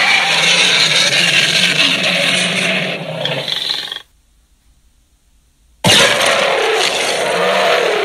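Designed Tyrannosaurus rex roar sound effect, layered from big-cat and monster roars, with a low rumble under it. It cuts off suddenly about four seconds in, and after a short silence a second roar begins near the end.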